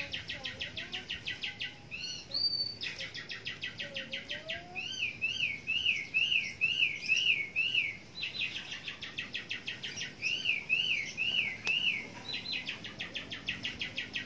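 Birds singing: a continuous fast run of short, high repeated notes, broken twice by a series of quick up-and-down chirps at about three a second.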